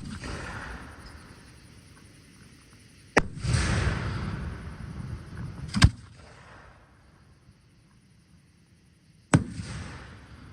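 Fireworks display shells bursting: three sharp bangs a few seconds apart, each trailed by crackling and hiss, with a longer crackling spread after the first one.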